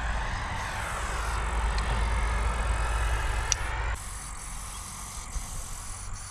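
Aerosol spray-paint can hissing as it paints lines on a concrete wall, over a low rumble that cuts off suddenly about four seconds in.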